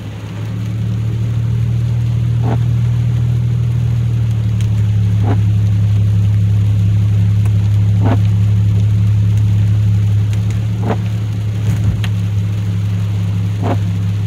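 Supercharged 3.8-litre V6 of a Chevrolet Impala SS droning steadily at cruise, heard from inside the cabin over road and rain noise. Windshield wipers swish across the glass about every three seconds.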